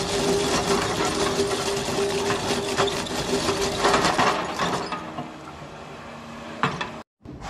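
Excavator-mounted rotary drum cutter grinding into rock: a dense mechanical rattle over a steady hum. It drops in level about five seconds in, with a single knock and a brief cut-out near the end.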